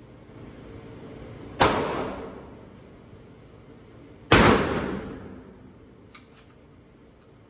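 Benelli Supernova Tactical pump-action shotgun fired twice, about three seconds apart, each blast trailing off in a long echo in the indoor range. A few faint clicks follow near the end.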